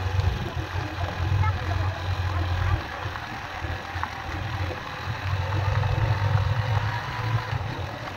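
Small motorcycle engine running while riding over a gravel road, with a low drone that swells and eases: strong at first, dropping off about three seconds in, strong again midway and easing near the end.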